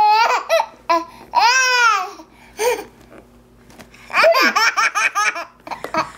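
A baby laughing in bursts, with one long high squeal and, about four seconds in, a quick run of repeated laughs.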